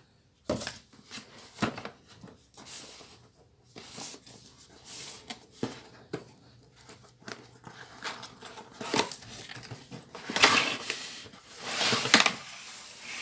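Cardboard product box being opened by hand and its packing handled: irregular clicks, taps and rubbing, with louder sliding, rustling swishes about ten and twelve seconds in.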